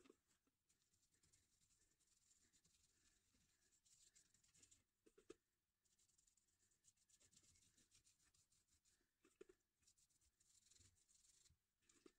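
Very faint scrubbing as a wet pad is rubbed over a moped's metal luggage rack to treat its rust, in short stretches with a few light knocks.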